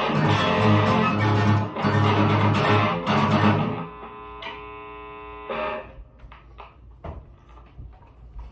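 Electric and acoustic guitar strumming chords together in a steady rhythm. About four seconds in the playing stops and a last chord rings out for about a second and a half, followed by a few faint knocks.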